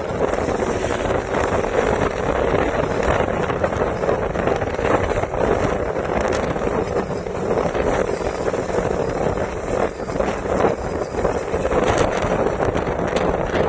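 Wind rushing over the microphone of a moving motorcycle, with the bike running underneath as a steady, unbroken noise.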